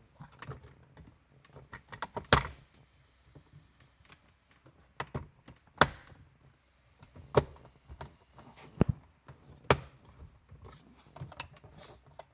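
Plastic car interior console trim being handled and worked back into place: irregular clicks, taps and rattles, with four louder sharp knocks.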